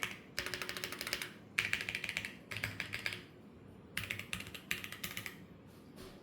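Typing on a Fuji 65 SE mechanical keyboard with Gateron Yellow Pro linear switches, a black aluminum plate and a carbon-fibre backplate: quick runs of keystrokes with short pauses between them, stopping near the end.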